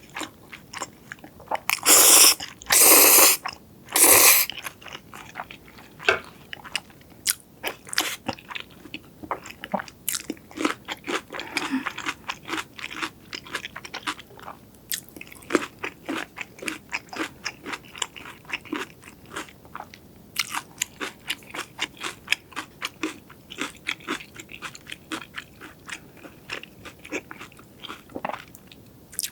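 Close-miked eating of crunchy food: three loud crunching bites about two to four seconds in, then steady chewing with many small crunches.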